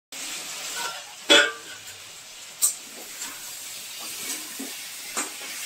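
Moringa drumsticks, potato and tomato in masala sizzling with a steady hiss in a metal kadai while a spatula stirs them. Three sharp metal clanks from the spatula or lid against the pan, the loudest about a second in.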